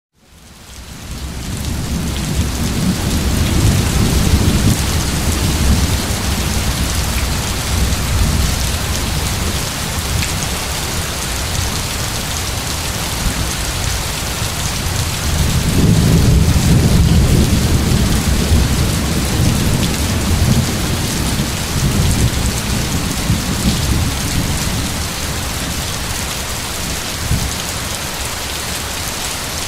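Steady rain falling, with two long rolls of low thunder, one starting a couple of seconds in and another about halfway through. The rain fades in at the start.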